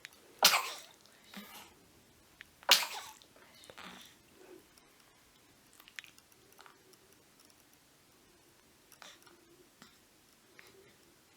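Newborn baby sneezing twice, about two seconds apart, each a short sharp burst, followed by a few fainter small sounds.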